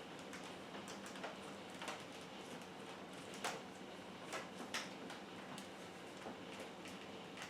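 Light, scattered clicks and taps of hard plastic vacuum-cleaner parts being handled, with a faint steady hum underneath.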